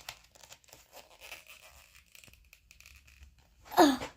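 Packaging being rustled and torn at in a struggle to open it, soft crackles and crinkles throughout. Near the end comes one short, loud sound that bends in pitch.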